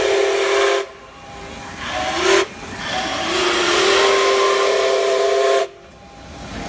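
Zoo railway steam locomotive "Oregon" sounding its whistle: a short blast, a brief chirp about two seconds in, then a long steady blast of about three seconds, with a hiss of steam.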